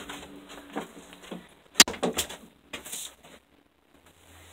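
Rummaging and handling noises, with one sharp knock about two seconds in and a few softer knocks after it.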